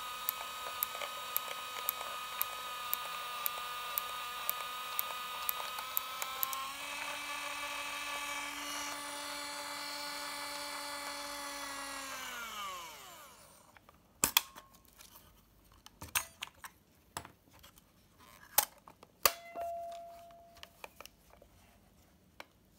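Olympus Trip AF 50's built-in film-transport motor whirring through a long motorized film rewind, with a regular ticking about twice a second. About six and a half seconds in the pitch shifts and the ticking stops; about thirteen seconds in the whine falls in pitch and the motor stops. After that come a few sharp clicks and knocks from the camera being handled.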